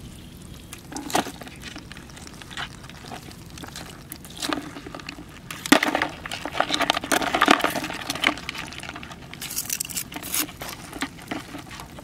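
Wet seaweed being pushed into a plastic bucket of live crabs with long metal tongs: scattered wet rustling and clinks, with one sharp click about halfway through, the loudest sound.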